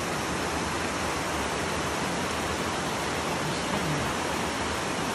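Creek water rushing steadily over rock ledges and small cascades.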